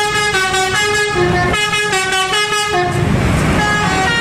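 Indonesian coach's multi-note musical air horn (a 'telolet' horn) playing a quick tune of stepped notes. A rush of road noise comes in about three seconds in as the bus passes close.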